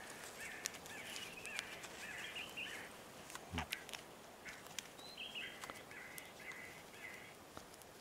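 Birds calling in the forest: short chirping notes repeated in clusters, a pause near the middle, then another run of notes. Over them come light clicks and rustles of hands handling a netted bird, with one dull bump about three and a half seconds in.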